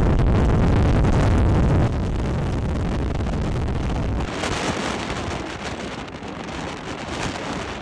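Strong wind buffeting the microphone, a deep steady rumble. About four seconds in it drops to a thinner, hissier wind noise.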